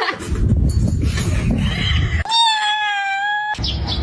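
A cat's long meow held at one steady pitch for just over a second, starting a little past two seconds in. Low rumbling noise comes before and after it.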